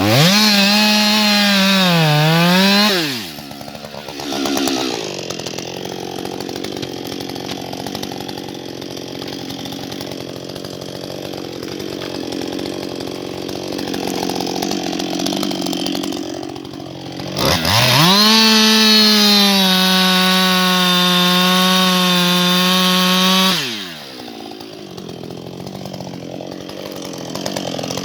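Husqvarna 560XP two-stroke chainsaw at full throttle for about three seconds, its pitch dipping once, then dropping to idle for about fourteen seconds. It goes back to full throttle for about six seconds and then drops to idle again.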